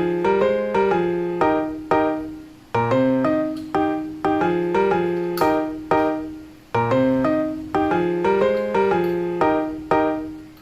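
Background piano music: struck, decaying piano notes in a repeating phrase that starts over about every four seconds.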